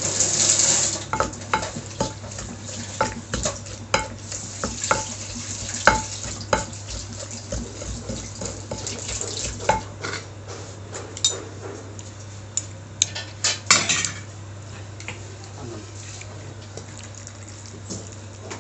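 A utensil stirring in a metal pot, with irregular clinks and knocks against the pot, some of them ringing briefly. There is a brief hissy rush about a second long at the start.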